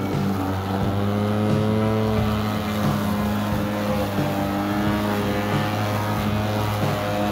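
Atlas 80V brushless cordless mower's electric motor and blade running steadily while cutting tall, thick grass. It gives a continuous hum whose pitch sags and recovers slightly as the load changes.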